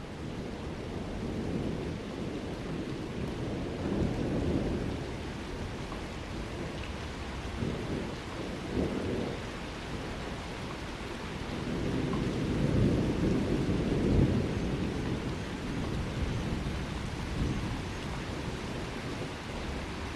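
Steady rain with low rolls of thunder rumbling through it, several times; the longest and loudest roll swells about two thirds of the way in.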